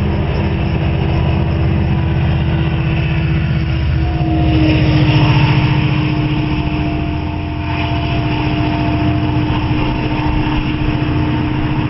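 A loaded coal train rolling past, then the BNSF diesel locomotive at its rear passes close by with a steady low engine drone. The sound is loudest about five seconds in as the locomotive goes by, then eases as it moves away.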